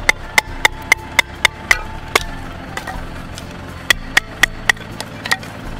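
Batoning firewood: a knife being struck hard on its spine to split wood, sharp knocks about four a second. There is a pause of about a second and a half in the middle of the run.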